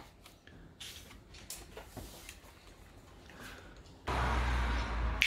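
A few faint clicks, then, about four seconds in, a sudden loud rushing noise with a deep rumble lasting about a second.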